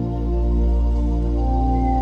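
Background music: a slow ambient new-age piece of sustained pad-like tones over a deep steady bass, with the chord changing about one and a half seconds in.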